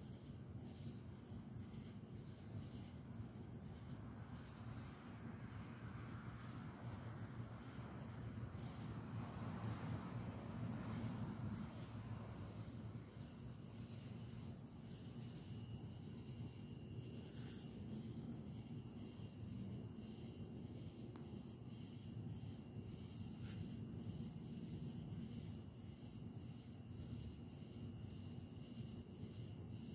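Crickets chirping, a steady pulsing high trill that runs on without a break over a low background rumble.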